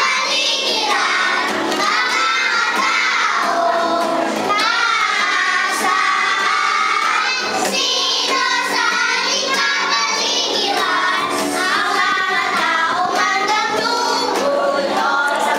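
A group of young children singing a song together, as a choir.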